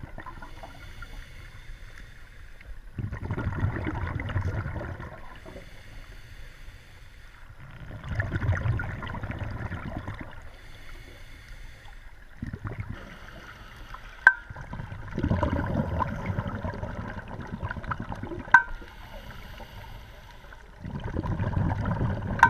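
Scuba exhalation bubbles rushing and gurgling past an underwater camera housing, coming in bursts a few seconds apart with quieter gaps between. Two sharp clicks sound in the second half.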